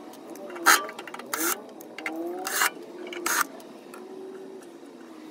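Cordless drill-driver whirring in short spurts, its motor speeding up and slowing down as it backs screws out of the inverter's metal side cover, with four sharp rattling clicks in the first three and a half seconds.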